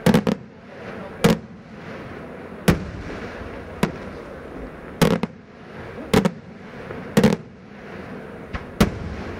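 Daytime fireworks: aerial shells bursting overhead in a steady run of sharp bangs, about one a second, some coming as quick doubles.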